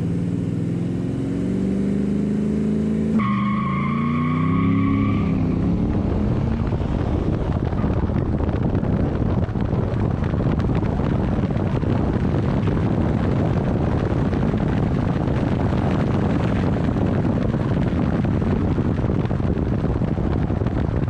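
A tuned 2013 Audi S5 accelerates flat out from a standstill: the engine note climbs through the first few seconds, then a steady whine runs for about two seconds. After that a loud, even rush of wind and road noise takes over as the car runs at around 80 mph.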